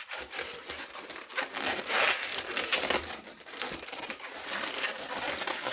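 Latex 260 modelling balloon being twisted and handled: irregular rubbery squeaks and crinkling as bubbles are pinched and twisted together.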